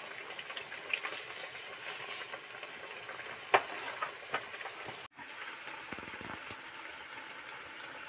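Spinach pakoras deep-frying in plenty of hot oil: a steady sizzling and bubbling, with a few sharp pops, the loudest about halfway through.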